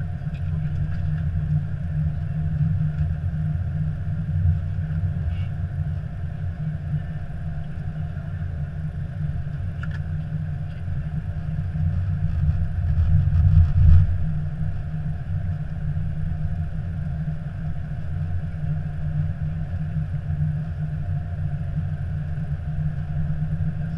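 Airbus A321 cockpit noise while the airliner rolls out and taxis after landing: a steady low rumble that swells briefly about two-thirds of the way through.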